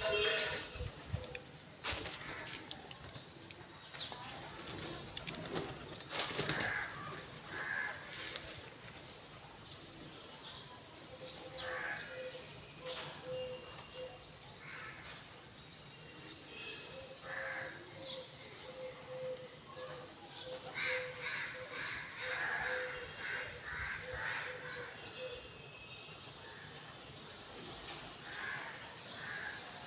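A flock of feral pigeons feeding together: wings flapping and birds shuffling, with short bird calls now and then.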